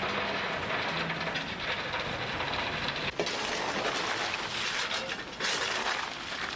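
Steam locomotive being serviced before a run: a steady rushing, clattering noise that dips briefly about three seconds in.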